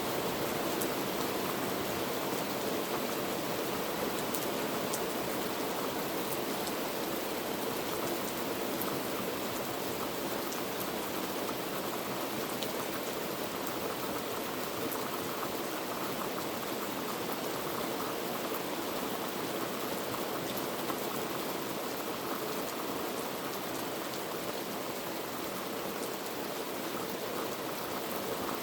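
Heavy rain falling steadily, a dense even hiss with many small drop ticks.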